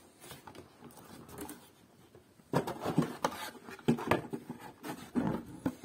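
Cardboard box being opened by hand: flaps pulled back and the box handled, with irregular rustling, scraping and light knocks that grow louder about two and a half seconds in.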